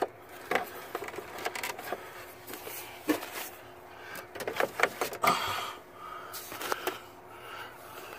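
Cables and a wiring harness being handled and tucked behind a plastic truck dash panel: irregular clicks, small knocks and rustles of cable and plastic.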